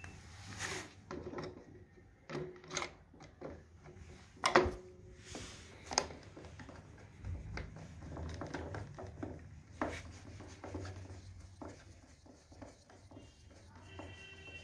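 Irregular clicks, knocks and rubbing of small contactor parts being handled and fitted together, the sharpest knock about four and a half seconds in, over a faint low hum.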